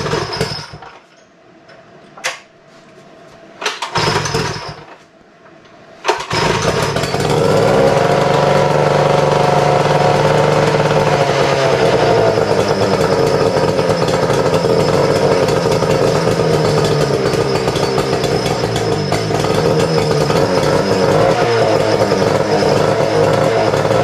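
1949 Mercury Hurricane two-stroke outboard being pull-started: a few yanks of the starter rope, then it catches about six seconds in and runs loud and steady, its speed wavering a little soon after it starts.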